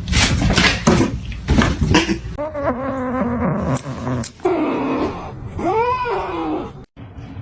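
A cat meowing in long, drawn-out calls, the last one rising and then falling in pitch, after a couple of seconds of loud noise.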